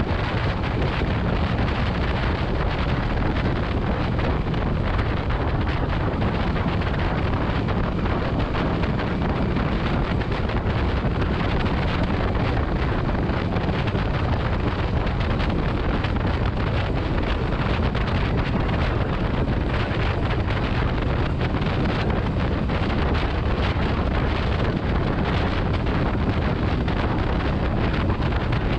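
Heavy wind buffeting the microphone over a steady low rumble, without a break.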